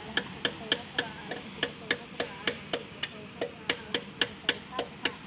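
Rapid, even knocking: about four sharp strikes a second, each with a short falling ring after it.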